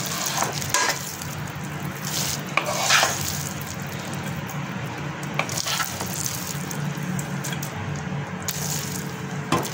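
Spatula stirring and scraping cooked semiya kesari (sweet vermicelli) around a nonstick kadai, with a few short scrapes now and then over a steady low hum.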